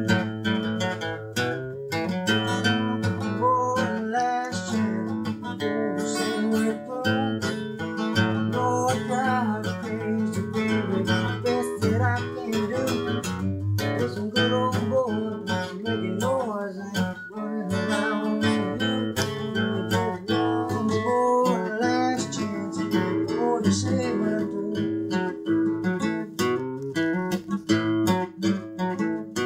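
Acoustic guitar being strummed, a continuous run of chords.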